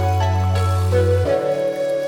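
Background music: calm, new-age-style instrumental with held notes over a deep bass note that drops out a little past halfway.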